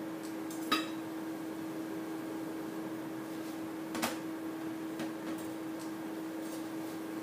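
Two light clinks of kitchenware, about a second in and again around four seconds, over a steady hum.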